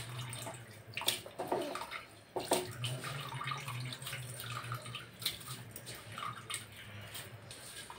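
Handfuls of washed, wet rice dropped and pressed into a pot of watery prawn masala, with irregular splashing and sloshing, over a low steady hum.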